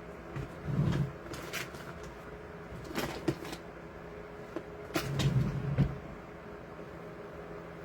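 KISS 1875-watt Pro Tourmaline Ceramic hair dryer running with a steady hum. Three short bursts of knocking and rattling come about a second in, around three seconds in, and just after five seconds in.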